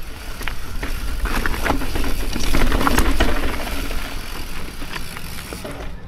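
Mountain bike descending a steep, rough trail: tyres rolling over dirt and rock, with the bike rattling and many sharp clicks and knocks over a steady low rumble. Loudest about halfway through, easing off near the end.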